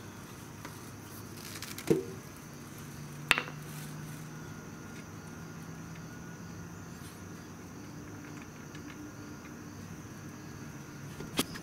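Two sharp metallic clicks, about two and three seconds in, as a rag-wrapped screwdriver works the oil filler plug on a motorcycle's clutch-side engine cover, over a faint steady high-pitched chirring.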